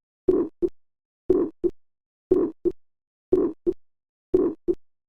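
Heartbeat with an innocent (functional) systolic murmur, about one beat a second. Each beat is a first heart sound run together with a short, faint, medium-pitched murmur that ends around mid-systole, then a normal, crisp second heart sound, with no extra sounds.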